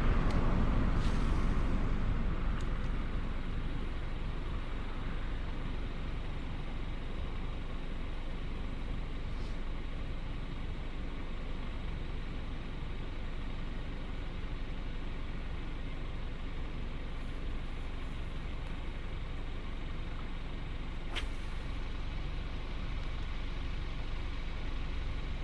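Road traffic passing close by on a highway: one vehicle goes by right at the start and fades over about three seconds, then a steady rumble and hiss of roadway noise.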